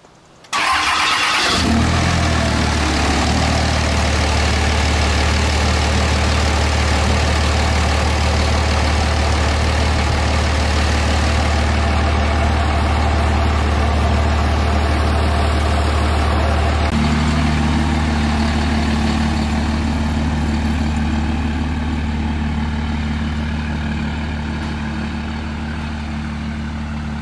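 Dodge Ram Mega Cab pickup's engine started for the first time after a new starter was fitted: it fires about half a second in and settles into a steady idle. About 17 seconds in the engine note changes, and it slowly grows fainter as the truck pulls away.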